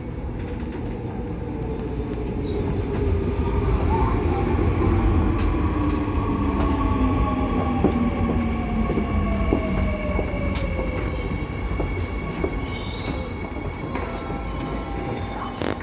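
Seoul Subway Line 2 electric train running between stations: a steady rumble of wheels on rail, with whining tones that slowly fall in pitch and some wheel squeal. A higher whine comes in near the end.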